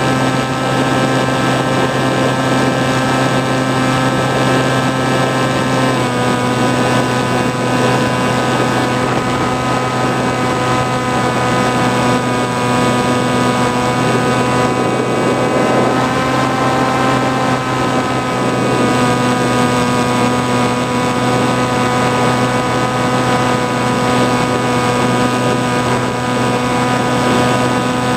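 Motor and propeller of an FPV flying wing in flight, heard from the camera on board: a steady whine over a rushing hiss. The pitch dips slightly about six seconds in, then rises briefly and settles back in the middle.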